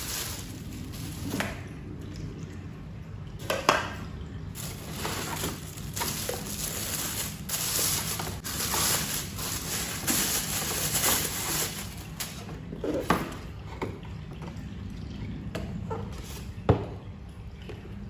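Kitchen tap water running in uneven spells, with sharp knocks from dishes or utensils, the loudest about a second in from the start of the rush and again near the end.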